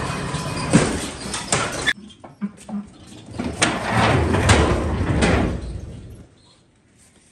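Manual pallet jack being handled and rolled with freight: a few sharp clanks and knocks, then a longer stretch of rattling, rolling noise that dies away about six seconds in.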